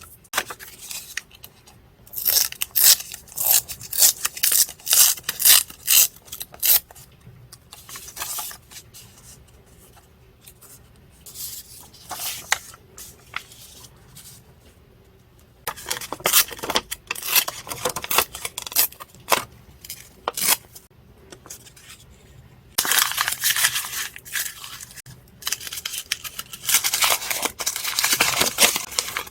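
Paper crafting at close range: paper being cut with scissors and torn, in runs of quick rasping strokes with quieter pauses between.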